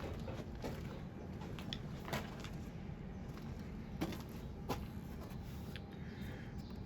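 Steady low background rumble with a few scattered sharp knocks and clicks, about four in all, the loudest around two thirds of the way in.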